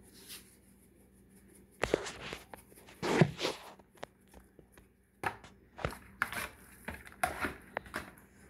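Kitchen handling sounds as black pepper is added from a spice container to a bowl of seasoned raw oxtail and a fork works in the bowl: a quiet start, then irregular rattles, rustles and sharp knocks, busier in the second half.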